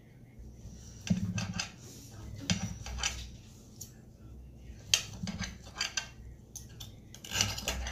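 A knife and fork scraping and clinking against a plate as cooked chicken is cut, in several short bursts of scraping with sharp clicks between them.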